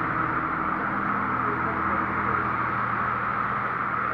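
Steady rushing noise of heavy rain and floodwater running across a flooded street.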